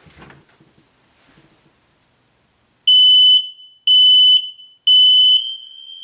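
Newly installed hardwired smoke alarm running its test-and-reset sequence after its test button is pressed: three loud, high-pitched beeps, each about half a second long and one a second, starting about three seconds in. A fainter steady tone at the same pitch carries on after the third beep.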